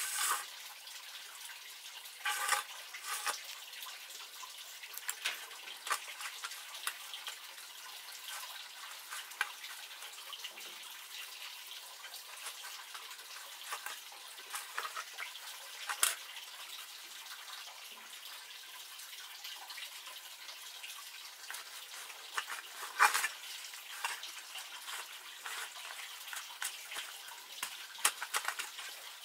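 Hands working a dry, crumbly mixture in a metal bowl: soft rustling with many small clicks and scrapes, and now and then a louder clatter, over a steady hiss.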